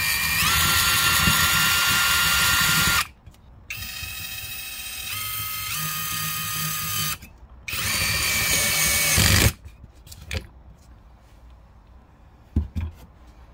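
Cordless drill motor whining as it spins a universal gripping socket on a hex-head screw in a wooden board. It runs in three bursts: about three seconds at full speed, rising in pitch as it spins up, then a quieter, lower-pitched run, then another full-speed run of about two seconds. A few light knocks follow near the end.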